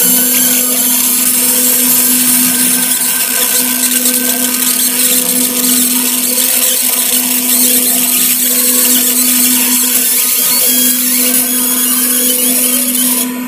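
Laser marking machine engraving a logo into a black metal air-rifle chamber: a steady hum with a dense, high hissing buzz over it.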